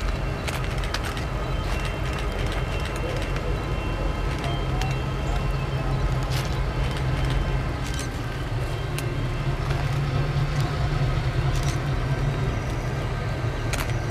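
Diesel cab-unit locomotive running as it approaches, pulling passenger cars: a steady low engine rumble that grows louder in the second half, with scattered sharp clicks.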